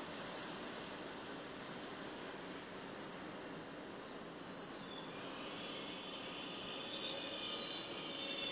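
Wheels of a slow-moving, locomotive-hauled passenger train squealing shrilly on the rails, several high tones held and shifting in pitch, over a low rolling rumble.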